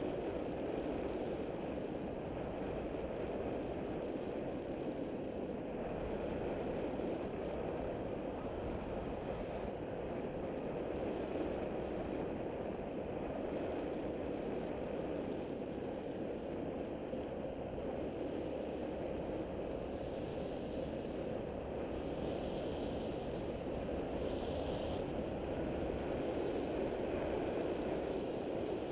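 Taotao CY150 150cc scooter cruising at a steady town speed: an even engine drone mixed with wind rushing over the camera microphone.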